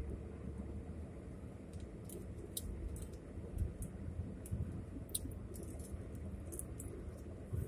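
Car cabin noise at highway speed: a steady low rumble of tyres and engine, with scattered small sharp clicks.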